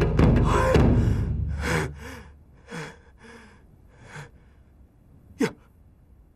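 A man panting and gasping for breath: a series of heavy, voiced breaths about half a second to a second apart, ending with one short sharp gasp near the end, the sound of someone winded and frightened after being chased. Loud percussive music fades out over the first two seconds.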